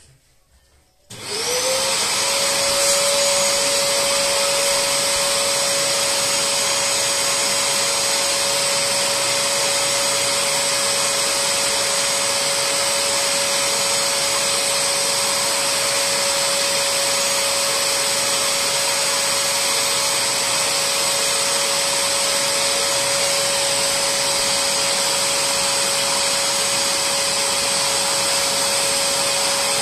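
Bissell SpotClean Pro 750-watt spray-extraction cleaner switched on about a second in. Its suction motor spins up with a short rising whine and then runs steadily with a constant hum and whine.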